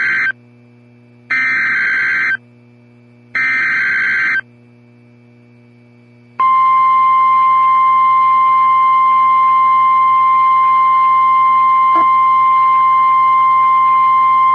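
Emergency Alert System broadcast: three screeching bursts of SAME data header, about a second each with a second's gap between them, then from about six seconds in a long steady single-pitch warning alarm tone, the NOAA Weather Radio alert that comes before a tornado warning is read.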